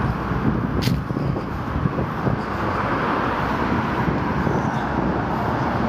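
Steady outdoor street noise, a constant rush like distant road traffic, with one brief sharp click about a second in.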